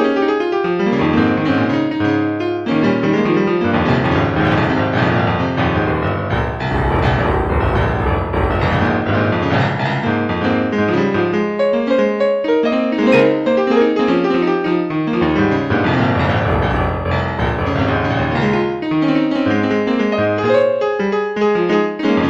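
Piano music with many notes at once over sustained low bass notes, playing steadily.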